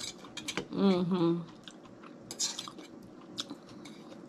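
A person chewing a mouthful of cheesy baked escargot, with scattered wet mouth clicks, and a short two-part hummed "mm-mm" about a second in.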